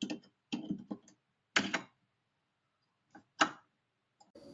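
A handful of short, separate clicks and knocks with silence between them, the loudest about one and a half seconds in and again near three and a half seconds.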